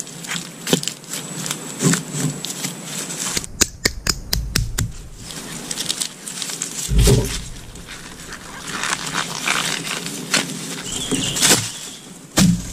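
Hands digging in soil and dry leaf litter and breaking out a young bamboo shoot: rustling and crunching of dry leaves with many sharp cracks and snaps. Two heavy thumps, about seven seconds in and again near the end.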